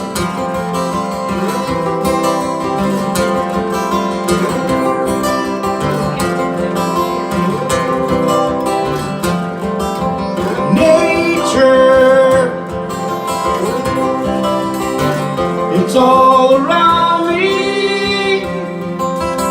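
Live band music led by strummed acoustic guitar, with a melody line rising over it twice.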